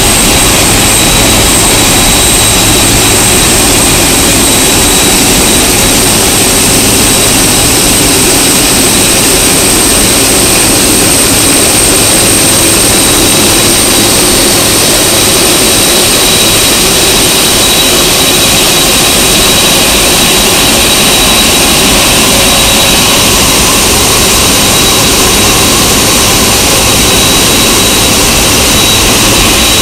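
Turbofan engines of a Boeing 747-400 freighter running close by: a loud, steady jet roar with a thin high whine on top.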